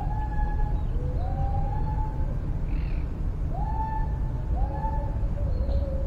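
Birds giving about five long whistled calls, each rising quickly and then held for most of a second, with lower calls overlapping them at a second pitch. A steady low rumble runs underneath.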